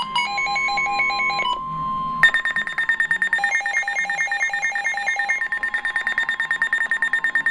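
Electronic Emergency Alert System alert tones coming from a TV, announcing a severe thunderstorm warning: synthetic beeps that switch rapidly between pitches, turning into a fast, evenly pulsing beep about two seconds in.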